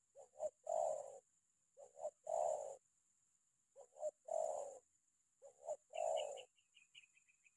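Spotted dove cooing: four repeated call phrases about two seconds apart, each two or three short notes leading into a longer, louder coo.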